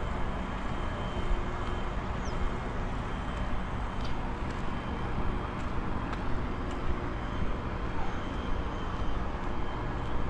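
Steady road traffic noise on a city street, with cars passing continuously.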